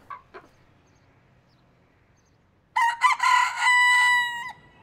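A white broiler-type rooster crowing once, starting nearly three seconds in and ending on a long held note.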